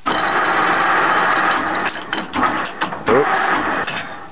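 1K62 engine lathe running with its spindle at about 250 RPM while the tool faces a steel workpiece: a dense, steady machine noise of gears and cutting that cuts in and out abruptly.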